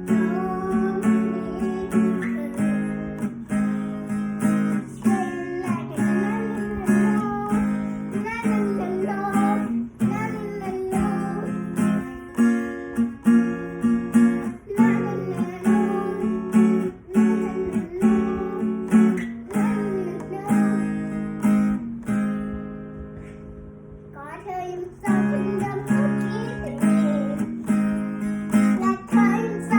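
Acoustic guitar strummed in a steady rhythm under a sung melody. About three-quarters of the way through, the strumming drops away for a couple of seconds and the music goes quieter before it picks up again.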